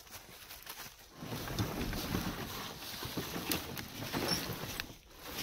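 Dry leaf litter rustling and crackling as a cardboard soapbox car on wooden wheels is dragged by a rope across the forest floor, along with footsteps in the leaves. It starts about a second in.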